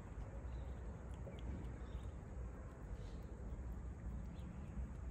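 Outdoor ambience: a steady low rumble with a few faint, scattered bird chirps.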